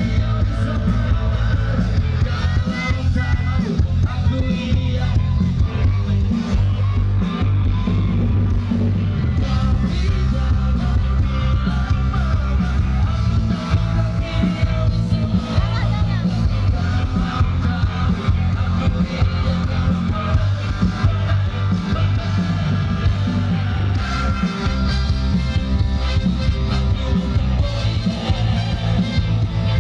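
Live band playing rock music loudly through a PA system: electric guitars, bass guitar and drums, with the bass the strongest part.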